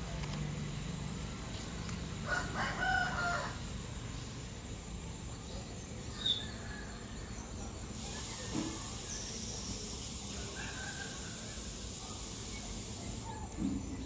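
An animal call lasting about a second, a couple of seconds in, over steady outdoor background noise. A high hiss comes in for several seconds later on.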